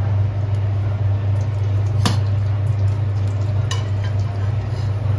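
Whole wheat flour poured into ghee in a stainless steel kadai, with a soft sizzle and two sharp metal clicks against the pan, over a steady low hum.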